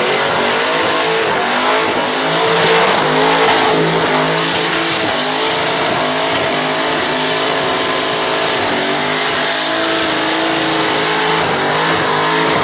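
Twin-turbocharged V8 of a Holden ute held at high revs during a burnout, the revs rising and falling, with the rear tyres spinning and squealing against the pavement.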